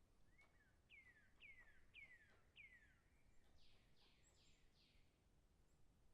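A bird singing faintly: four clear whistled notes, each sliding downward, about two a second, followed by four harsher, higher notes that also slide down.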